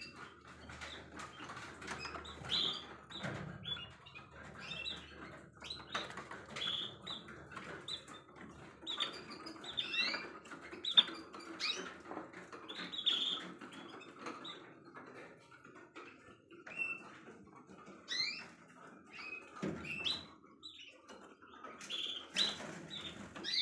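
Caged canaries and other small finches chirping, a steady stream of short, high call notes from many birds, with scattered light clicks.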